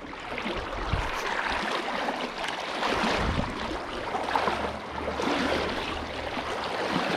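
River water flowing and splashing, a steady rushing with irregular gurgles.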